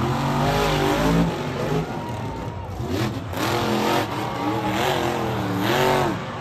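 Monster truck's V8 engine revving hard, the pitch rising and falling several times as the driver works the throttle while the truck rears up and tips over.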